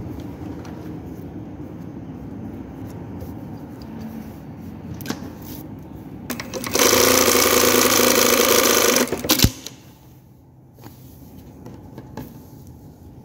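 Industrial single-needle lockstitch sewing machine stitching denim, with a low steady hum at first. From about seven seconds in it runs loud and fast for about two seconds, then stops with a sharp click.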